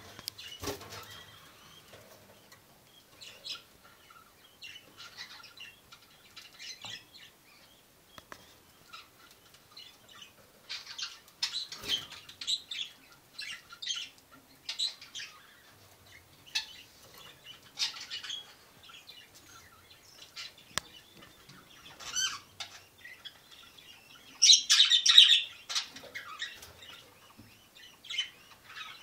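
Budgerigars chattering: scattered short chirps and warbles, with a louder burst of chirping near the end.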